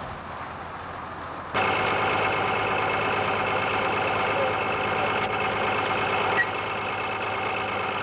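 Vintage farm machinery running steadily with an engine hum. The sound steps up abruptly to a louder, even drone about one and a half seconds in.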